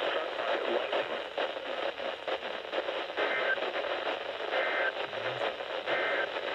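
Static-laden radio reception of an Emergency Alert System broadcast. Three short two-tone data bursts come about a second and a half apart in the second half, in the manner of the SAME header bursts that open an EAS alert.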